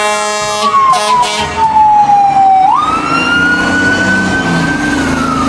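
Fire truck siren wailing on an emergency run, with a horn blaring over roughly the first second and a half. The siren's pitch falls slowly, jumps sharply back up about two and a half seconds in, climbs gradually, then falls again near the end.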